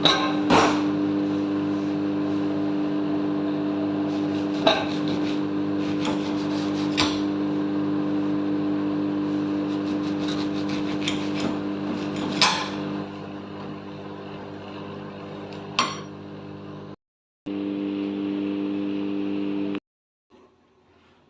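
A steady mechanical hum, made of several constant tones, with a few sharp clicks and knocks over it. The hum drops in level about 13 seconds in, cuts out briefly around 17 seconds, and stops about 20 seconds in.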